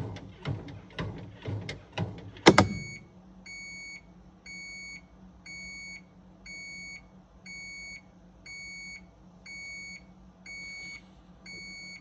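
Sharp ES-GV8D top-loading washing machine beeping once a second, nine times, the signal that its cycle has finished. The beeps follow rhythmic thumps about twice a second that end in a loud clunk. A low hum runs underneath.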